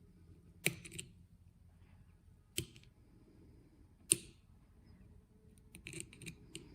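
Sharp clicks and clinks of hand tools and small outboard carburetor parts being handled during disassembly. There are a few separate knocks, the loudest about four seconds in with a brief ring, then a quick run of lighter clicks near the end.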